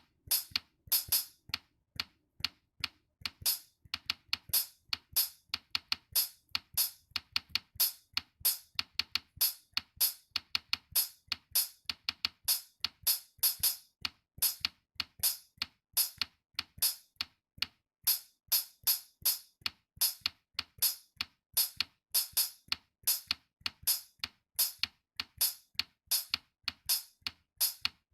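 Music made of a quick, steady beat of sharp drum-machine hits, with little melody.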